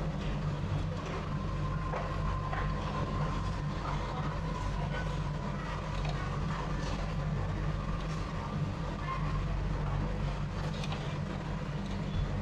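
Passenger train running: a steady low rumble with scattered clicks, and a faint whine for a few seconds early on.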